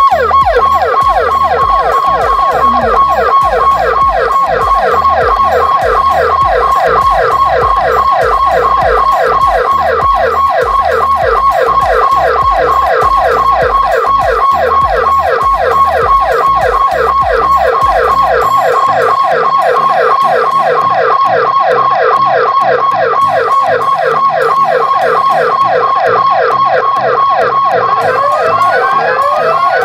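Loud electronic alarm siren sounding as the strong-wind early-warning alert: a fast, evenly repeating falling wail over a steady high tone, changing near the end to slower rising sweeps.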